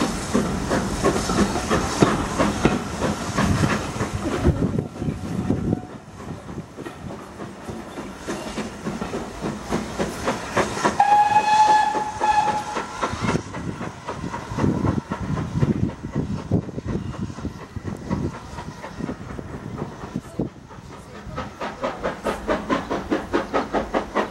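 Steam-hauled passenger train passing, its coaches rumbling and clicking over the rail joints, loud for the first few seconds and then fading as it draws away. About halfway a steam whistle sounds once for about two seconds, and near the end a rhythmic beat rises again.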